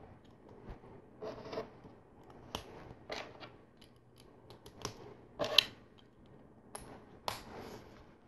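Plastic LEGO bricks clicking and rubbing as they are handled and pressed together by hand: a scattered series of small clicks and short scrapes, the loudest about five and a half seconds in.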